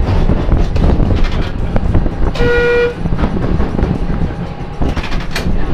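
Steady low rumble of a rail vehicle running, with one short horn toot of about half a second a little over two seconds in.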